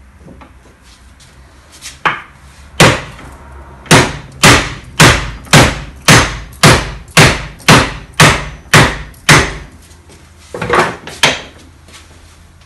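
Hammer blows through a hardwood block, driving a Mercedes alternator's rotor out of its housing: a run of about a dozen sharp, evenly spaced knocks, about two a second, then two more after a short pause.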